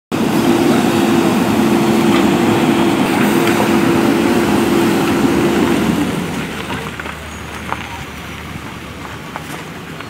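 JCB 3DX backhoe loader's diesel engine and hydraulics working under load with a steady drone, then easing to a quieter run about six seconds in as the boom is lifted.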